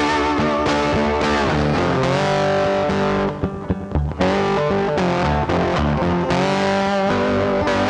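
Background music led by a distorted electric guitar with bass, with bending notes and a brief drop a little over three seconds in.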